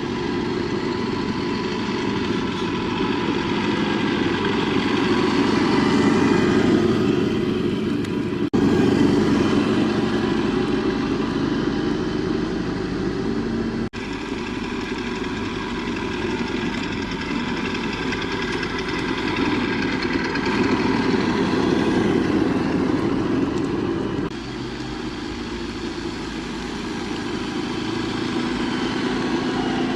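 Radio-controlled Tamiya King Hauler truck driving with a loaded trailer behind it, giving a steady engine-like running sound. The sound drops briefly about 8 and 14 seconds in and eases somewhat near the end.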